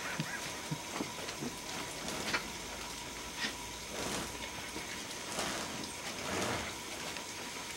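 Soft rustles and scattered light clicks of a hanging ball of woven vines as a tayra grabs and spins it, over a steady background hiss.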